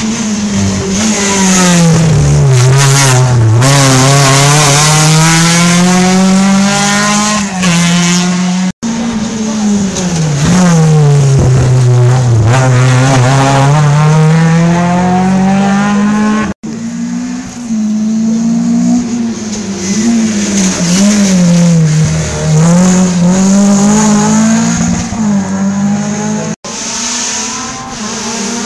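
Rally car engines at full throttle: each car's engine note falls as it slows for the corner, then climbs again as it accelerates away through the gears. The sound is in four pieces with abrupt cuts between them.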